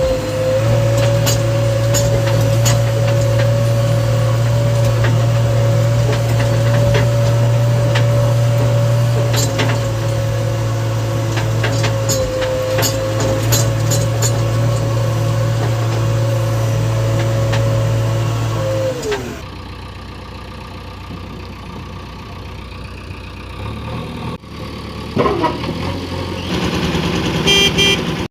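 Diesel engine of a JCB 3DX backhoe loader running steadily with a steady whine over it. About nineteen seconds in, the whine falls away and the engine drops to a quieter run, then picks up again near the end.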